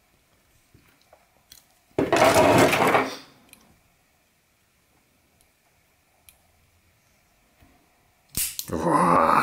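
Faint clicks of metal folding knives being handled. Two louder, voice-like sounds about a second long each, one about two seconds in and one near the end.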